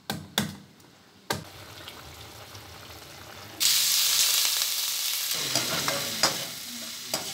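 A few sharp utensil clicks, then about three and a half seconds in a sudden loud sizzle as chopped wild eggplant hits hot oil in an aluminium pot. The sizzling goes on steadily, with a few knocks of a ladle against the pot as it is stirred.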